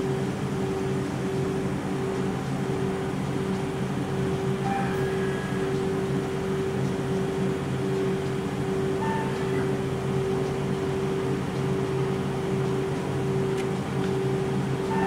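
BKN-S82 commercial soft-serve ice cream machine running while it dispenses, its refrigeration compressors and beater motors giving a steady, even hum.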